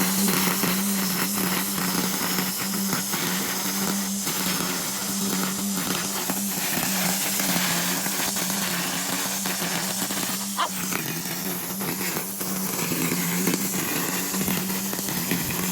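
Gas-powered leaf blower running steadily: an engine drone with a rushing hiss of air, its pitch dipping slightly now and then.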